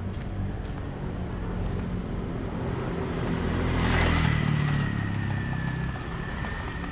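Street traffic noise with motor scooter engines; one passes close, growing louder to a peak about four seconds in, followed by a thin, steady whine.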